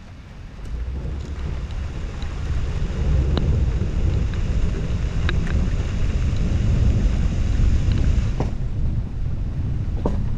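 Wind buffeting the microphone of a camera mounted on a moving car, with a low rumble from the car and its tyres on a wet road, building up over the first few seconds as the car gathers speed. A few sharp ticks are scattered through.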